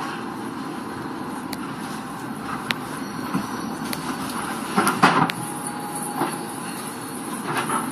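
Ship in heavy seas: a steady rumbling noise with scattered knocks and clatters, and a louder crash about five seconds in.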